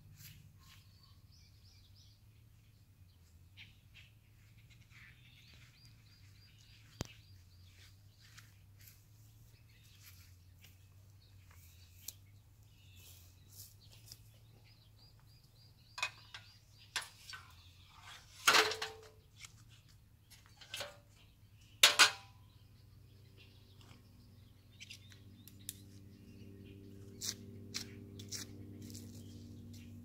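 Birds chirping faintly, then a few sharp metallic clanks and knocks about two-thirds of the way in as an aluminium stepladder is handled. A faint steady hum with several tones comes in near the end.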